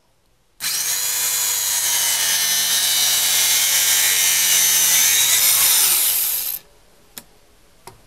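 Circular saw running and cutting wood: a loud, steady whine that starts suddenly about half a second in, dips slightly in pitch near the end, and cuts off abruptly about six seconds later. Two faint clicks follow.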